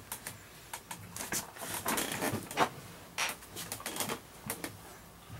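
Hands handling parts and tools at the lawn mower: a string of irregular clicks, taps and short rustles.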